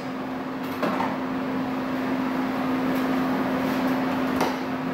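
Steady low hum over a constant hiss, with two light clicks, one about a second in and one near the end.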